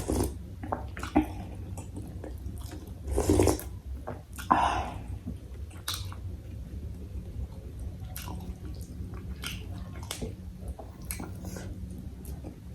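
Close-up eating of bakso meatball soup: wet chewing and slurping, with scattered short clicks, and two louder slurps about three and four and a half seconds in.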